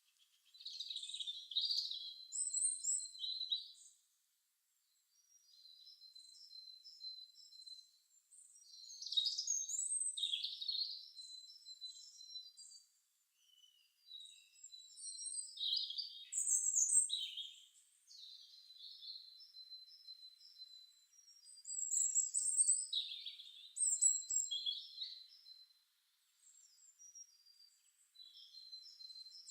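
Small birds chirping and twittering in scattered bursts of short, high calls with brief pauses between them.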